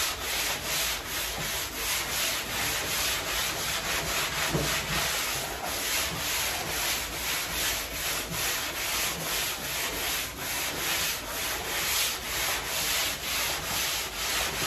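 Foam glass block (stink rock) being rubbed by hand back and forth over body filler in quick, even strokes, about three a second, with a dry, scratchy rasp. This is block sanding to cut down lumps and waves in the filler.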